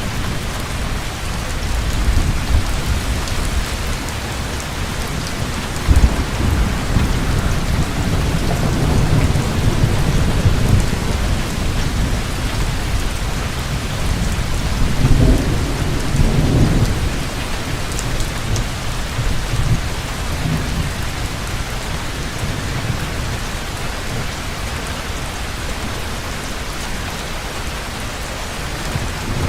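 Heavy rain falling steadily, with thunder rumbling low beneath it. The thunder swells about six seconds in, again a few seconds later, and most strongly a little past the middle.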